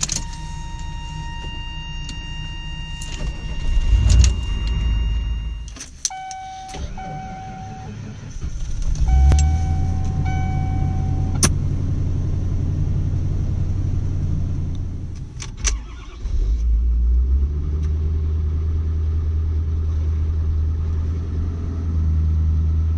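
Three truck cold starts in a row. A 1992 GM 6.5 L Detroit diesel cranks and fires about four seconds in, with a steady electronic warning tone over it. A 1995 Ford F-150's 302 small-block V8, started for the first time in a week, catches about nine seconds in under a pulsing chime and idles; then a 2013 Ford 6.7 L Power Stroke diesel starts and idles steadily.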